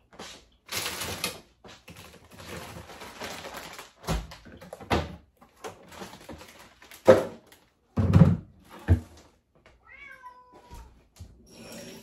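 A domestic cat meows once near the end, a short call falling in pitch. Before it come several sharp knocks and thuds, the loudest about seven and eight seconds in.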